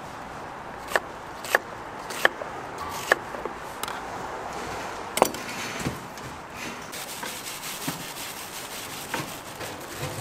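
Irregular knocks and clinks of food-stall kitchen work, about a dozen sharp hits, a few ringing briefly, the loudest about halfway through, over a steady background hiss.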